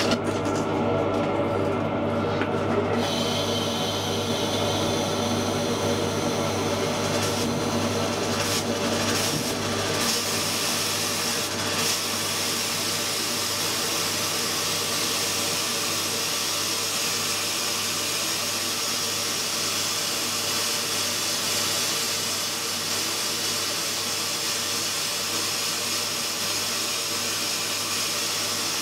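Sandblasting gun firing blasting grit at 110 psi onto stencilled York stone: a steady, loud hiss that sets in about three seconds in and grows fuller about ten seconds in. A steady droning hum runs underneath it.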